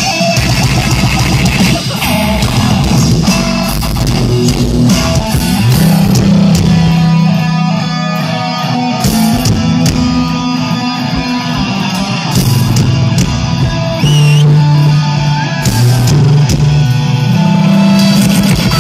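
Loud live heavy rock played at full volume through a large outdoor sound system: a distorted, bass-heavy instrumental passage with long low notes that shift every second or two, played on the band's Scorpion Tail instrument rig.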